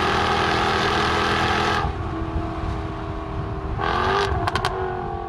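Jaguar XKR-S's 5.0-litre supercharged V8 running hard under acceleration. About two seconds in the sound drops away to a quieter, steadier note. It picks up again near four seconds with a few sharp cracks, then starts to fade.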